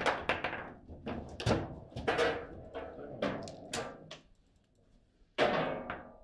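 Table football play: a quick run of sharp knocks and clacks as the hard ball is struck by the rod figures and bangs against the table walls, a rally that ends in a goal. One more loud knock comes near the end.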